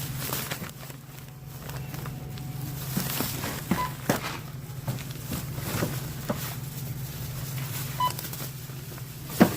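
A steady low hum with scattered knocks and clicks, and two short electronic beeps about four seconds apart.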